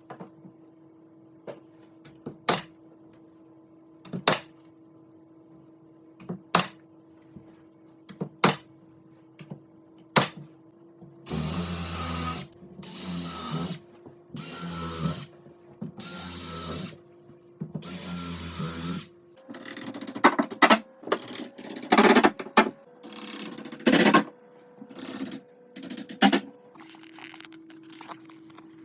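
Sharp single knocks about every two seconds, then a power drill running in a series of short bursts of about a second each, then a cluster of louder knocks and clatter as the cleat and mantle are fastened up.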